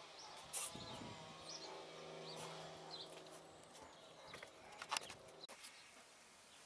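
Faint garden ambience: small birds chirping over a steady droning hum that stops about five and a half seconds in, with a few sharp clicks shortly before it stops.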